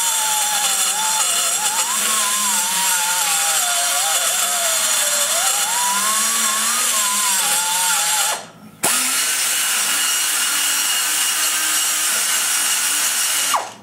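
Die grinder cutting into the exhaust port of a small-block Chevy cylinder head, depth-cutting and rough-shaping the port roof and sides. It runs with a steady hiss and a whine whose pitch wavers as the load on the cutter changes. It cuts out for about half a second a little past the middle, then runs again until it stops near the end.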